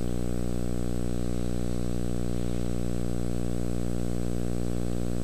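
Steady electrical hum with many even overtones, unchanging in pitch and level throughout.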